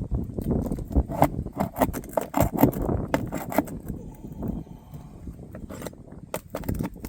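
Hand tool scraping and clicking against old asphalt shingles as they are loosened and nails are worked out: a quick run of irregular sharp clicks and scrapes for about four seconds, then fewer and more spaced.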